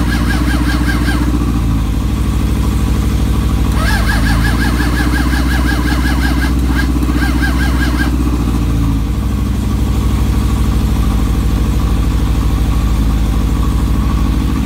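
Suzuki GSX600F's starter motor cranking the engine in two bursts, a short one at the start and a longer one from about 4 to 8 seconds with a brief break, without the engine catching. The owner puts the failure down to flooded carburettors and fuel-soaked spark plugs. Under it another motorcycle engine idles steadily.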